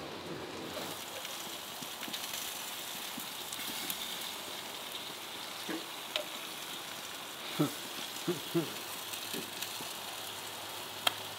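Halibut collars sizzling on the grates of a gas grill: a steady hiss, with a few light clicks of a utensil against the grate.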